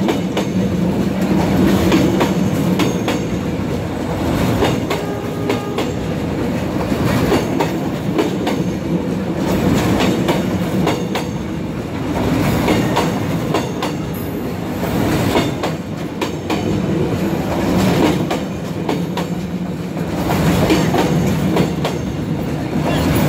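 Passenger coaches of a Vietnam Railways express train rolling past at speed: a steady rumble, with the wheels clicking over the rail joints all the way through.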